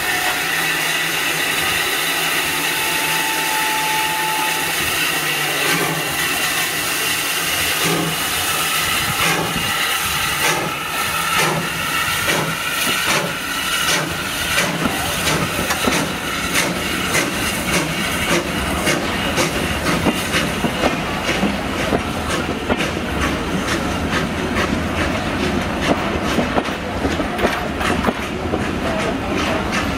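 Steam train pulling out: LSWR T9 4-4-0 locomotive 30120 hissing steam as it gets under way, then its coaches rolling past with wheels clacking over the rail joints, the clacks coming faster and faster as the train gathers speed.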